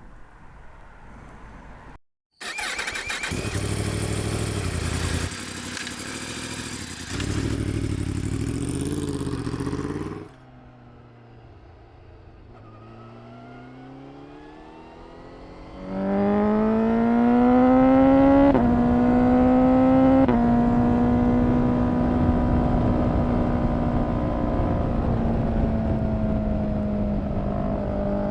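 Honda CBR1000RR-R SP Fireblade inline-four with an Akrapovic exhaust. It runs loud and noisy at first, then its pitch rises slowly. Later the motorcycle accelerates hard, its pitch climbing and dropping at two quick upshifts about two seconds apart, then holds a nearly steady high note at speed.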